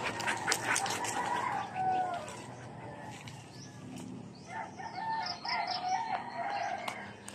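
A rooster crowing, one broken call of several steps lasting about two seconds, starting about four and a half seconds in. A few knocks sound in the first second.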